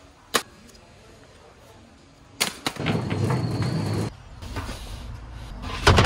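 Handling noise from packaged electrical supplies on a board: a sharp click, then about two seconds of rustling and scraping about two seconds in, followed by lighter clicks and a knock near the end.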